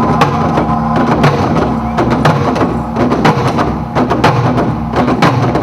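Music for a dance performance: sharp percussion strikes, several a second at uneven spacing, over sustained low tones.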